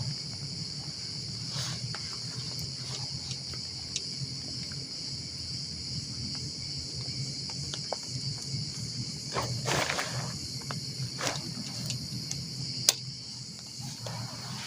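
Steady high-pitched chorus of insects in the forest, with a low steady hum beneath it. Scattered rustles and clicks sound through it, a louder rustle around ten seconds in and a sharp click near the end.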